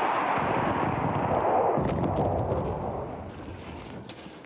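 Loud rushing roar of a missile strike, dying away about three seconds in.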